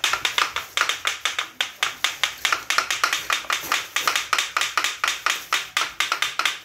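Wooden jaws of carved barong masks clacking shut over and over, a quick train of sharp dry clacks about four or five a second.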